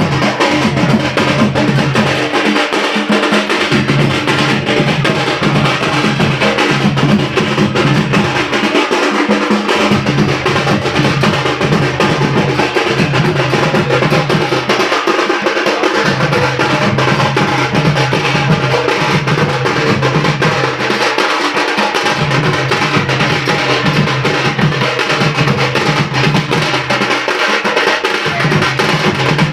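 Loud Odia folk drumming on double-headed dhol-type drums playing a fast, driving rhythm, with a low steady tone underneath that drops out briefly about every six seconds.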